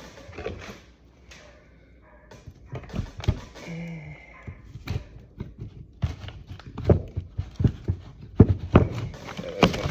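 Irregular metal knocks and clicks as a tight king pin shim is worked into a steering knuckle. They are sparse at first, come thick and fast from a few seconds in, and are loudest near the end.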